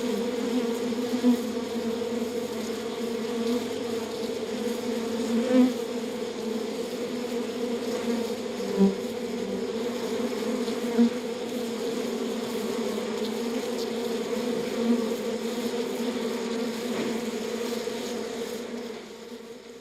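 Bees at a hive buzzing in a steady drone, with single bees now and then swelling louder as they pass close. The sound fades out near the end.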